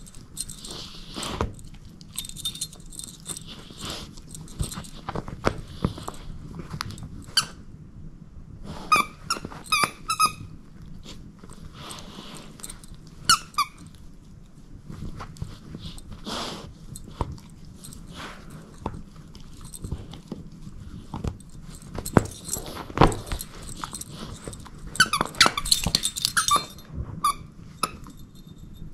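A dog chewing a plush squeaky toy: the squeaker gives runs of short squeaks, about a third of the way in, again a few seconds later, and a longer flurry near the end, among soft chewing and mouthing noises.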